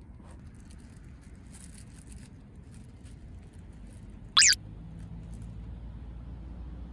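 Low, steady outdoor rumble, with a few faint ticks, from the lakeshore at night. A little over four seconds in, a short, loud falling whistle-like sound cuts in.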